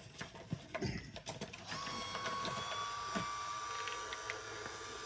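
Nescafé Dolce Gusto pod coffee machine's pump running steadily as it pushes water through the pod, a machine hum with a clear high-pitched tone. It starts about a second and a half in, after a few light clicks.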